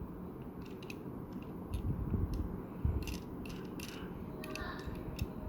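Handling of a small model car's box and loose parts: scattered light clicks and rustles, with a couple of dull knocks about two and three seconds in.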